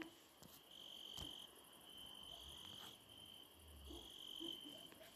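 Near silence: faint background with a thin high tone that comes and goes several times, and a few soft clicks.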